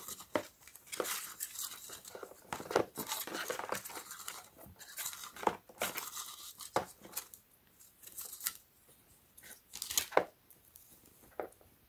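A flexible LED light strip with adhesive-tape backing being pulled off its plastic spool by hand, giving irregular crinkling, rasping and small clicks.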